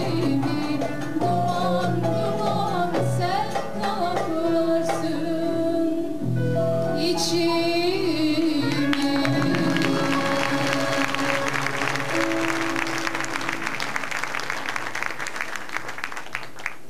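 Mixed choir with a female soloist and plucked lutes finishing a Turkish folk song on held final notes. About halfway through, the audience breaks into applause, which thins out near the end.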